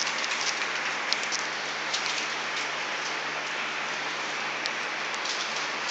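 Newspaper rustling and crinkling under several six-week-old puppies moving about on it, a steady hiss with scattered light clicks.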